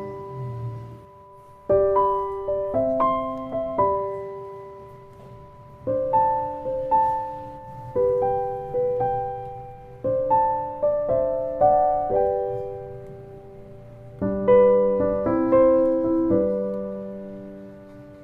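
Background piano music: a gentle melody of single notes and chords, each struck and dying away, in phrases of a few seconds.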